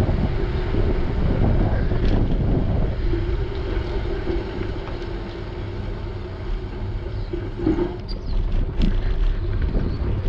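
Wind buffeting a bicycle-mounted action camera's microphone during a ride, with steady tyre-on-road rumble and a few light clicks and rattles near the end.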